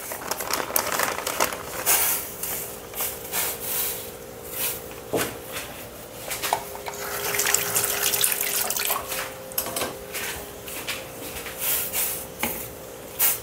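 Water at a rolling boil in a stainless steel pot, bubbling and splashing as ramen noodles are dropped in and stirred with chopsticks, with scattered short clicks and taps throughout.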